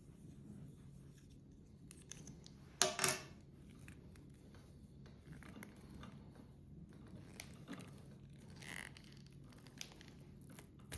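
Coax cable stripper working on the outer jacket of an NMEA 2000 cable, with small scattered clicks and scraping rasps as the jacket is cut and worked off. The loudest is a short rasp about three seconds in.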